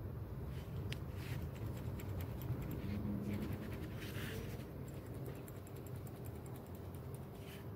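Scratchy handling noise with bursts of fast, faint clicks over a low steady rumble, as a belt tensioner pulley is handled close to the microphone.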